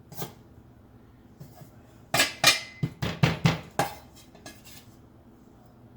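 Kitchen utensils and dishes clattering: a couple of knocks, then a quick run of about eight sharp clinks and knocks about two seconds in.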